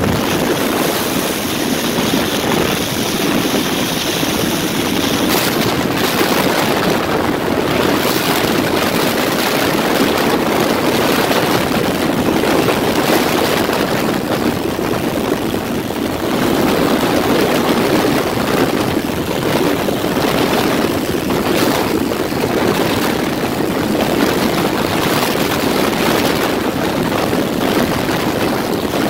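Small propeller plane's engine running steadily, heard through heavy wind rush on a phone microphone held out of the open cabin window at about 150 km/h.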